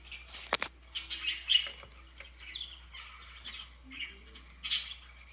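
A small bird chirping on and off, with a few sharp clicks among the chirps, the loudest near the end.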